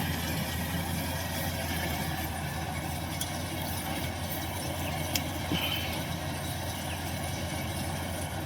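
Rice combine harvester's engine running steadily: a constant low drone, with a single sharp click about five seconds in.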